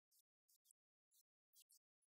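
Near silence, broken only by a few faint, very short crackles.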